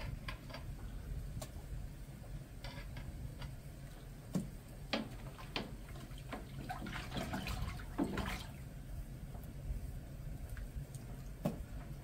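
Buttermilk sloshing and dripping as fresh butter is gathered out of it into a pot of water, with a few short knocks scattered through and a busier run of splashing about two-thirds of the way in.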